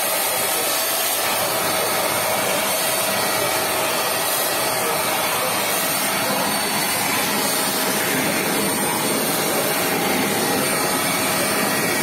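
Deerma DX118C vacuum cleaner running steadily in handheld mode, drawing air through its narrow nozzle: an even rush of air with a faint steady whine in it.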